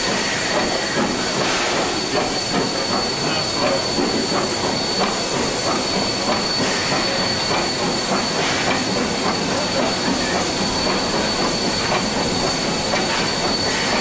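A running train, its steady rolling rumble and hiss mixed with faint clicks from wheels and track, with a thin steady high whine over it.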